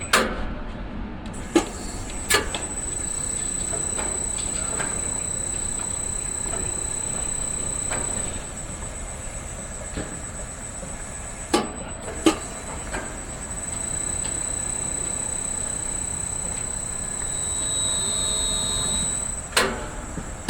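Tower crane machinery running: a steady rumble under a constant high-pitched whine, broken by a few sharp clanks, two of them close together about twelve seconds in. A second, lower whine swells briefly about eighteen seconds in.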